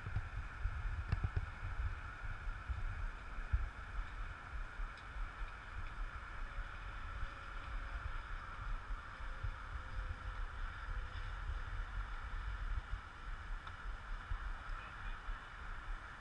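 Wind buffeting the microphone in uneven gusts, a low fluttering rumble, over a steady faint hiss.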